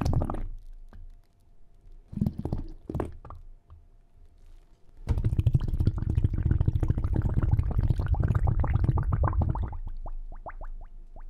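Minke whale vocalisation recorded underwater: short bursts of low pulses, then a long dense train of rapid low pulses from about five seconds in to about ten, ending in a few quick rising chirps.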